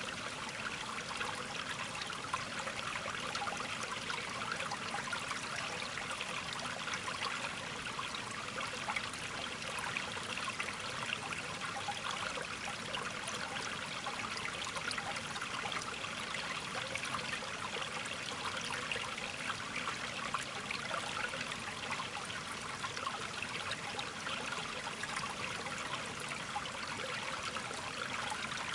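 Steady sound of running, trickling water, even and unbroken throughout.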